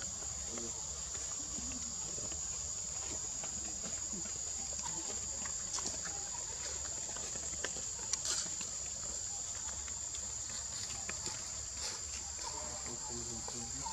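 Steady high-pitched drone of insects, with a few faint leaf rustles and clicks.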